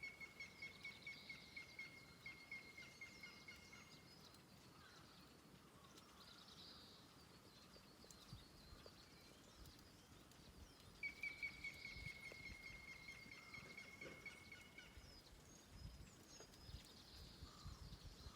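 Wild birdsong, faint: one bird sings a quick series of identical whistled notes on one pitch for about four seconds, then sings it again about eleven seconds in. Other small birds chirp faintly and higher behind it.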